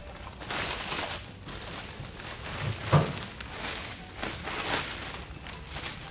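Plastic wrapping crinkling and cardboard rustling as a steel cargo basket half is lifted out of its packaging, with a single knock about three seconds in.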